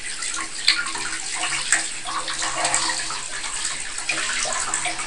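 Handheld shower head spraying water onto a wet cat's fur in a bathtub: a steady rush of water, with two brief knocks about a second apart early on.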